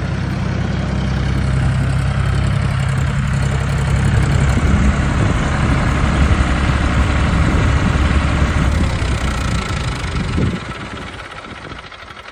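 John Deere 5300 tractor's diesel engine running steadily as the tractor drives along. About ten and a half seconds in, the engine note cuts off and the sound falls away.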